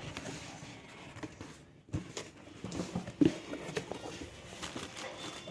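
Cardboard parcel being handled and pulled open: scattered rustles and light knocks, the sharpest about three seconds in.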